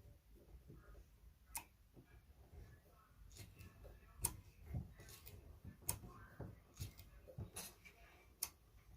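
Quiet, irregular sharp clicks and taps from hand work at a workbench, about a dozen spread unevenly over several seconds.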